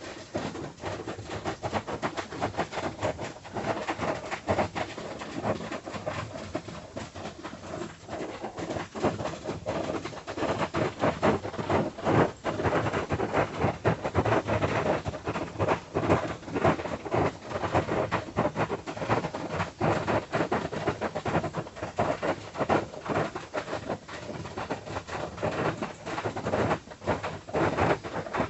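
Rain beating on a tin roof, heard from inside a wooden house: a dense, irregular patter of drops striking the metal, growing heavier a few seconds in.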